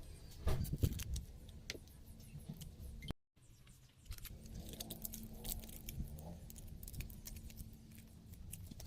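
Scattered light clicks and small rattles, like small hard objects being handled, with an abrupt cut to silence about three seconds in and a faint steady hum afterwards.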